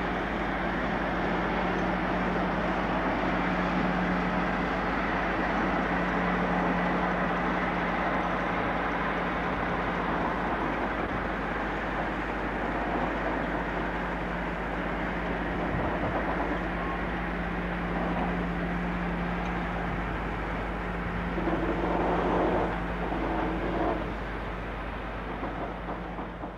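A Class 56 diesel locomotive and its train of covered hopper wagons passing at speed: a steady rumble of engine and rolling wheels on the rails, with a few louder clatters near the end as the wagons go over the rail joints.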